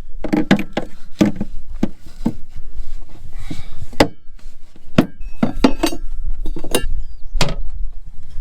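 Hard objects being handled and set down: about a dozen irregular knocks and clunks, with a short rustle about three and a half seconds in.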